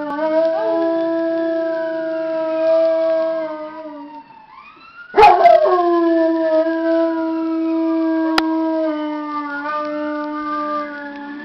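Dog howling in two long, steady howls, the first fading out about four seconds in and the second starting loudly about a second later, set off by a fire-engine siren playing from computer speakers. The siren's faint rising and falling wail sounds behind the howls.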